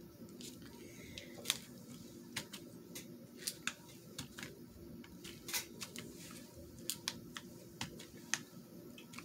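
Irregular light taps and clicks of a wood-mounted rubber stamp and hands working on paper at a craft table, over a faint low hum.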